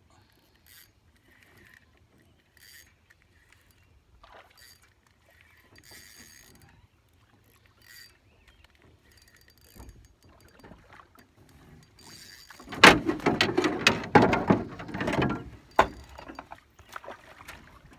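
A small rowboat's oars being worked, with water splashing and sharp knocks. It is loudest for about three seconds past the middle, with only faint scattered clicks before that.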